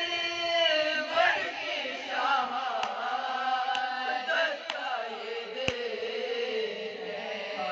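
Women's voices chanting a marsiya, a mourning elegy, without instruments: one lead voice close to the microphone with the others singing along, in long held notes that slowly bend in pitch. A few faint clicks fall in the middle.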